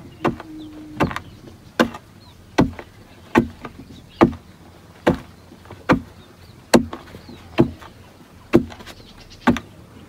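A wooden-handled digging tool striking into hard, stony soil while a hole is dug by hand. It lands in a steady rhythm of sharp thuds, about one strike every 0.8 seconds.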